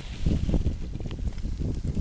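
Wind buffeting the microphone in an uneven, gusty low rumble.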